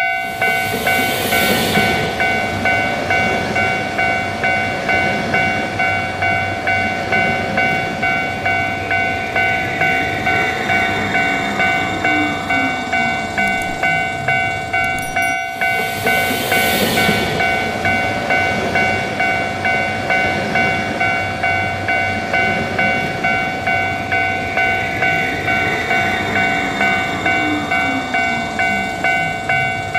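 Japanese level-crossing warning bell ringing kan-kan about twice a second over the rumble and clatter of a passing train.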